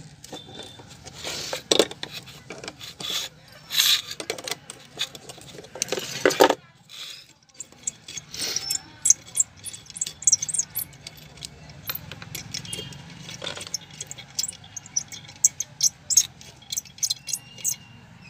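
Small metal nuts and tools clicking and clinking in irregular ticks while the nuts holding an electric clothes iron's soleplate assembly are undone and set down on a hard floor, with some rubbing and handling of the iron's metal body.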